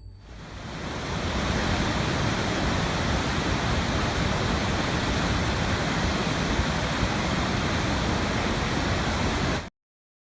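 Waterfall: a steady rush of falling water that fades in over the first second or two and cuts off suddenly near the end.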